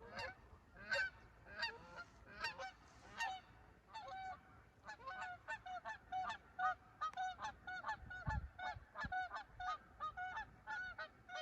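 Geese honking. There are a few loud, spaced honks at first, then from about four seconds in a quicker, busier run of honks, several a second.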